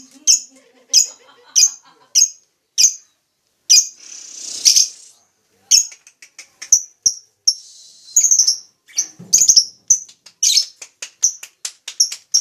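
Lovebird chirping: sharp, high calls, at first about one to two a second, then coming faster and closer together in the second half. Two longer, harsher raspy calls come about four and eight seconds in.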